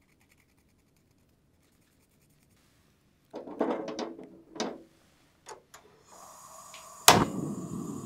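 Near silence for about three seconds, then peeled chestnuts splashing and knocking in a metal pot of water as a hand moves them about, with a few sharp clicks. Near the end a single sharp loud click, followed by a steady low rushing.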